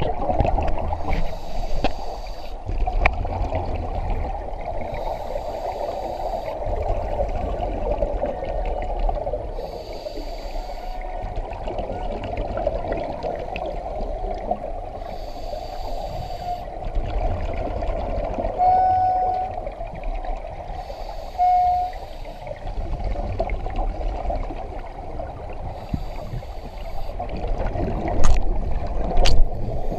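Scuba diver breathing through a regulator underwater: a burst of exhaled bubbles about every four to five seconds over a steady hum, with two short squeaks near the end.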